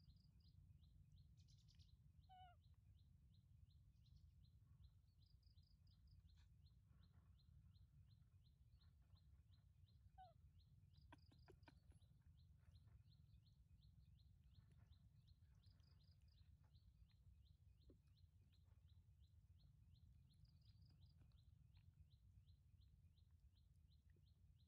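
Near silence: faint outdoor ambience with a high chirp repeating steadily about three times a second, and a few brief bird calls now and then.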